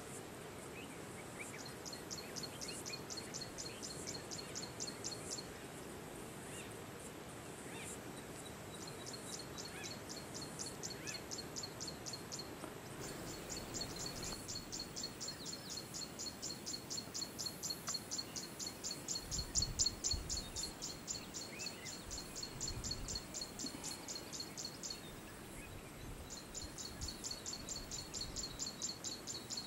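Natural outdoor ambience: a high, rhythmic pulsing call repeated in bouts of several seconds with short pauses, over faint scattered chirps. A couple of low bumps come about two-thirds of the way through.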